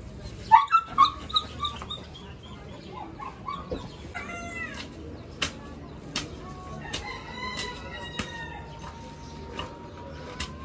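Rooster clucking, then crowing: one long drawn-out crow that holds a steady note and rises at the end. A few sharp knocks are heard along with it.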